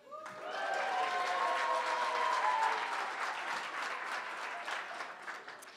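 Audience applauding. It builds quickly, with a few voices calling out over the clapping during the first two and a half seconds, then tapers off toward the end.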